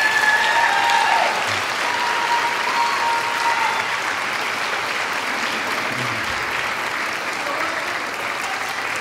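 Audience applauding steadily. A long, held cheer rises over the clapping in the first few seconds.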